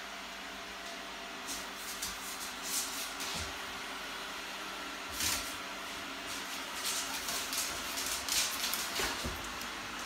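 Robot vacuum cleaner running on a laminate floor: a steady motor and fan hum, with scratchy, hissing brush sweeps that come and go several times.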